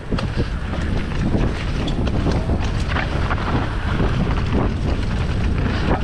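Wind rushing over the microphone during a fast mountain-bike descent, with a steady rumble and frequent short knocks and rattles from the bike running over rough trail.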